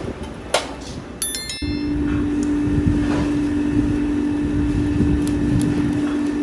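A short ringing metal clink about a second in, then a workshop machine starts and runs with a steady hum and low rumble.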